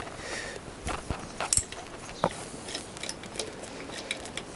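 Socket ratchet clicking as a bolt on a motorcycle engine is turned, with a few light metal knocks and clinks, then a run of quick ratchet clicks in the second half.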